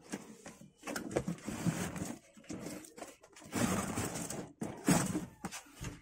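A large cardboard model-kit box being opened by hand: the lid scrapes and slides off, with rustling of cardboard and the plastic runners inside in several uneven bursts and a few light knocks.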